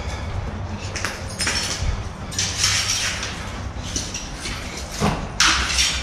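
Footsteps crunching over broken glass and debris on a hard floor, a few irregular crunches with the loudest about five and a half seconds in.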